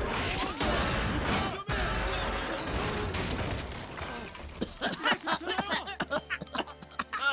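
Crash of collapsing metal scaffolding: a dense, continuous din of falling metal and debris with a few heavier impacts, for about four and a half seconds. It breaks up into scattered sharp clinks and clatters of small pieces settling.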